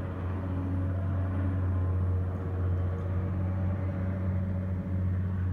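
Sikorsky S-58 lift helicopter hovering and pulling away: its rotor and engine make a steady low drone.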